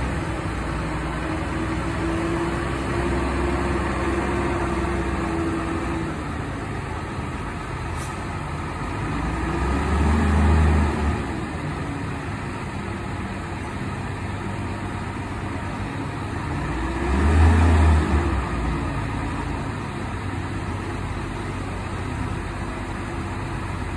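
Diesel engine of a long-distance coach running at low speed as it manoeuvres. Its note swells up and falls back twice, about ten seconds in and again near eighteen seconds, as the engine is revved.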